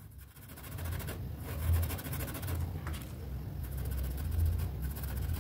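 Soft strokes of a paintbrush dabbing paint onto stretched fabric, over a low steady rumble.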